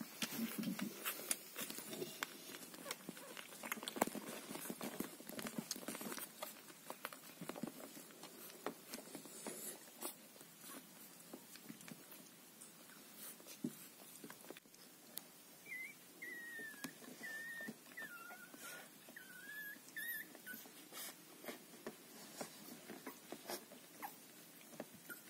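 Newborn Havanese puppies suckling at their mother, with many small wet smacking and clicking sounds. Partway through, a puppy gives a thin, wavering squeak for several seconds.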